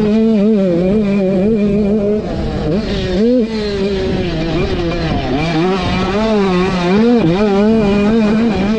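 A KTM supermini motocross bike's two-stroke engine at high revs, held wide open, its pitch dipping briefly and climbing again several times, most sharply about three seconds in.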